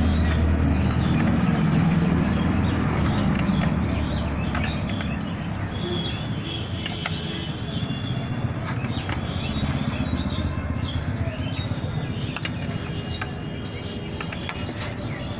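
Steady low background rumble, with scattered small metallic clicks from a spanner working the nut on a battery terminal clamp.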